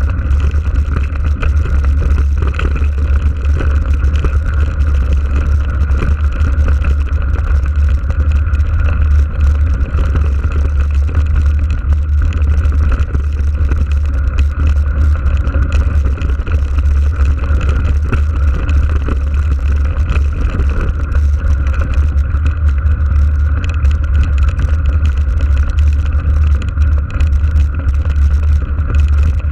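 Steady low wind rumble and rolling vibration picked up by an action camera's microphone on a mountain bike riding over a gravel track.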